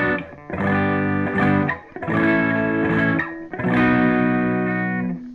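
Electric guitar through a Boss Katana Artist amp with its Variation setting switched on, playing lightly distorted chords. One chord stops just after the start, then three more are struck about a second and a half apart, each held to ring and then cut off; the last rings out near the end.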